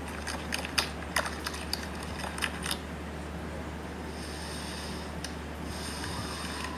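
Slime being squeezed and poked by hand, giving a run of sharp clicks and pops for about three seconds, followed by a faint hiss.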